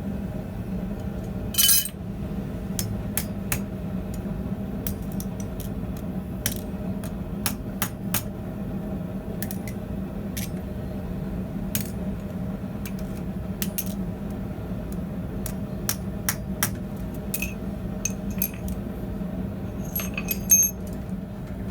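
Scattered light metal taps and clinks, with two louder ringing hammer-on-anvil strikes, about a second and a half in and near the end. A steady low hum runs underneath.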